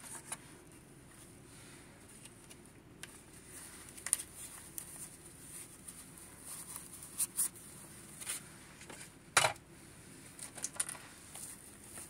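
Quiet handling noises from packing by hand: scattered small ticks, taps and light rustles, with one louder brief rustle about nine seconds in, over a faint steady hiss.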